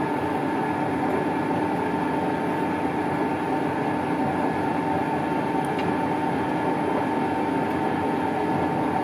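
Colchester Triumph 2000 lathe taking a cut along a long metal shaft with an insert tool, a steady ringing with several held tones over the running machine. It is chatter: the shaft vibrating under the cut, a finish the machinist calls just horrible.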